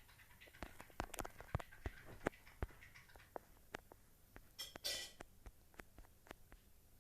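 Irregular small clicks and taps, with a short rustling hiss about five seconds in.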